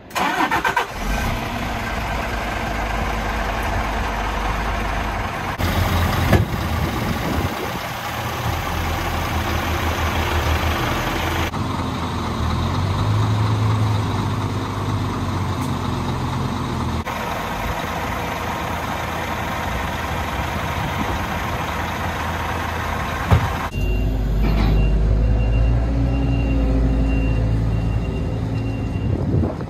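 Scania R450 truck's 13-litre straight-six diesel engine running steadily, its tone changing abruptly every few seconds. Near the end a reversing beeper sounds in short repeated beeps.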